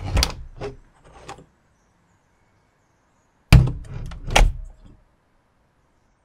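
A door opening with a few sharp clicks and knocks, then, about three and a half seconds in, two heavy bangs a second apart as the double doors swing shut.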